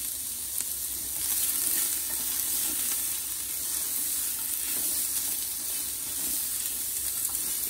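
Diced onion, celery and carrots sizzling steadily in hot oil in a stainless steel pot while being stirred, sautéing until they soften.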